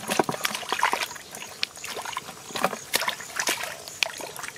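Hands splashing and sloshing in shallow muddy water while groping for stranded catfish: a run of irregular small splashes and drips.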